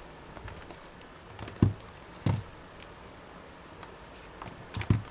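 Three short, dull knocks from laptop parts being handled and set down, two close together a couple of seconds in and one near the end.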